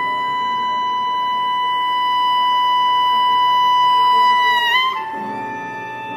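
Chamber ensemble music: a solo clarinet holds one long high note for nearly five seconds, swelling slightly, then bends and settles on a slightly lower pitch, over a soft sustained string backing.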